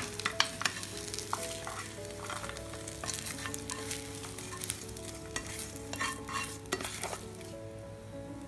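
A metal spoon scraping and clicking against a black iron frying pan as fried chicken pieces are pushed out onto a plate, with a light sizzle from the still-hot oil. There are many short scrapes and taps throughout.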